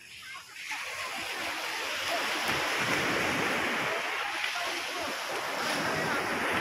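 Sea surf washing on the shore, a steady rush of noise, with wind on the microphone.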